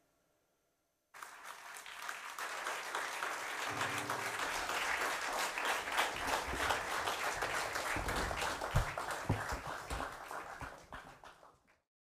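An audience applauding, many hands clapping at once. The applause cuts in suddenly about a second in and cuts off abruptly just before the end.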